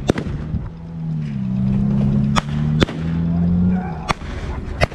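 Scattered blank gunshots, five sharp cracks a second or so apart. A low engine hum rises about a second in and fades near the end.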